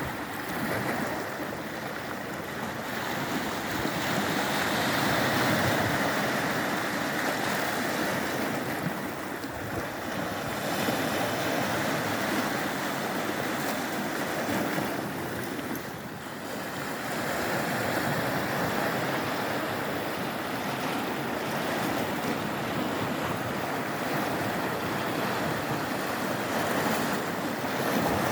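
Black Sea surf breaking on the shore: a continuous rushing wash that swells and eases as the waves come in, dipping briefly about ten and sixteen seconds in.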